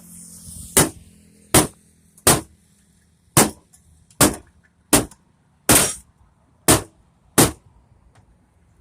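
Nine sharp blows struck one after another on an old CRT television being broken apart for scrap, spaced a little under a second apart.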